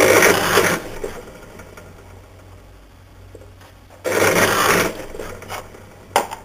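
Drill press motor running with a steady hum, its bit cutting into a small block in two loud bursts, one at the start and one about four seconds in, with a short third bite near the end.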